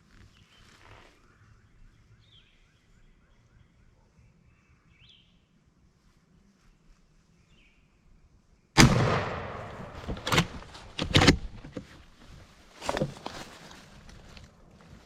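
Faint songbird chirps, then about nine seconds in a single very loud shotgun blast that rings off over about a second, followed by several loud knocks and rustling.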